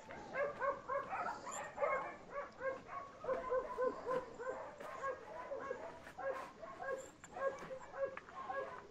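A dog barking over and over in short, high yaps, about three a second, without a break.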